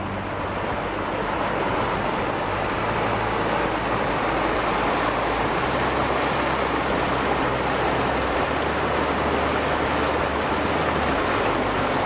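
Mountain stream cascading over boulders: a steady rush of water that builds over the first couple of seconds.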